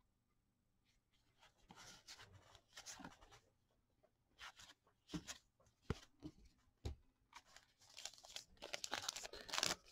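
Faint rustling and crinkling of O-Pee-Chee hockey cards and their pack wrappers being handled, cards slid and flipped through by hand, with a few sharp ticks about halfway through and denser rustling near the end.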